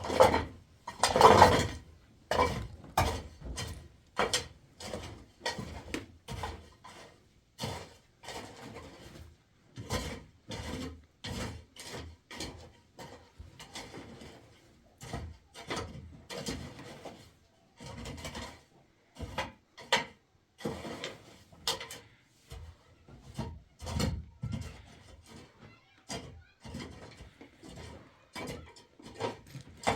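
Hand construction work: irregular knocks and short scrapes, about one or two a second, loudest in the first two seconds.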